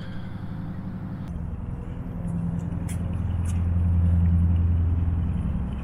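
Hatteras motor yacht's diesel engines running, a low steady drone that swells louder through the middle and eases toward the end, with a couple of light clicks.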